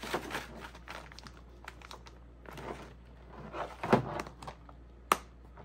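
Paper and foil seed packets rustling as they are handled and sorted, with sharp clicks and knocks of small plastic storage cases, the loudest about four seconds in and another a second later.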